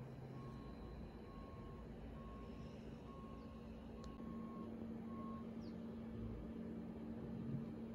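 Faint vehicle reversing alarm beeping about once a second on a single steady tone, stopping about five and a half seconds in. A low steady hum runs underneath.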